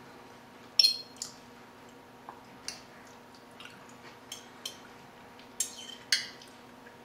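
A metal fork clinking and scraping on a dinner plate as pasta is twirled and eaten: scattered sharp clinks, the loudest about a second in and another strong pair near the end. A faint steady hum lies underneath.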